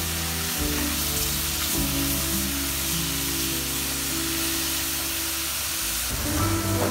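Sliced brown champignon mushrooms sizzling in a stainless steel pot as they are stirred with a wooden spoon, under background music of long held notes that change near the end.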